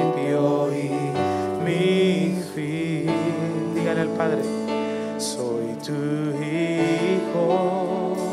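Slow Spanish-language Christian worship song, a man singing long held notes over a band accompaniment.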